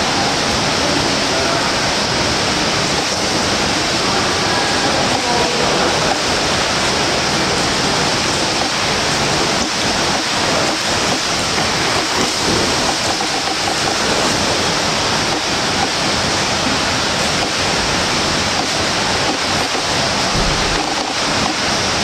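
Steady splashing of swimmers doing front crawl in an indoor pool, a continuous wash of water noise from arm strokes and kicks.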